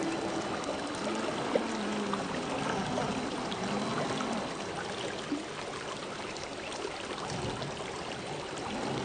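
Shallow creek water flowing and trickling over rocks, with the faint, wavering whine of an RC rock crawler's electric motor and gears under it and a couple of small knocks.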